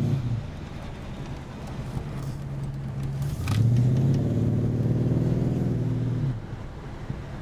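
A Holden 308 V8 in a Series 2 Jaguar is pulling under throttle and lifts off just after the start, then runs lighter. About three and a half seconds in, after a brief hiss, it comes back on the throttle for about three seconds and lifts off again.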